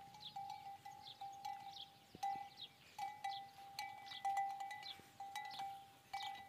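A bell hanging from a walking camel's neck, ringing with its steps. One steady ringing tone is struck again irregularly, about twice a second.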